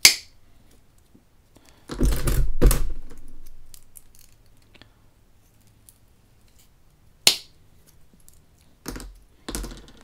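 Thin wooden sticks being snipped to length with small hand cutters: a sharp snap at the start and another about seven seconds in, with two heavier knocks about two seconds in and a few more near the end as sticks are handled on the desk.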